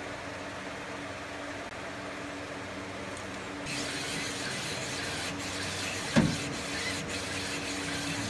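Parts washer running with a steady hum, joined about three and a half seconds in by the hiss of flowing solvent. A single sharp knock about six seconds in, as the cylinder is handled in the tub.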